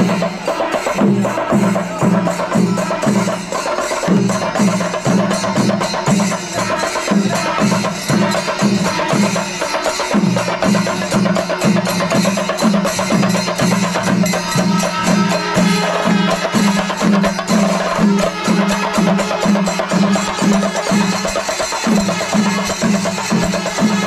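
Kerala temple percussion ensemble playing: drums struck in a steady rhythm of about three beats a second over a continuous clash of hand cymbals.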